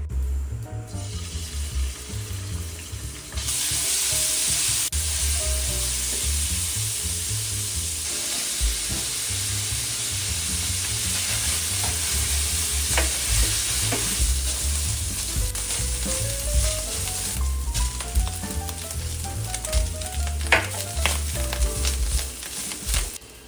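Minced meat, chopped shiitake and dried radish sizzling in oil in a stainless steel wok while a silicone spatula stirs and scrapes them. The sizzle comes up loudly about three seconds in and keeps on, with a few sharp ticks from the spatula on the pan.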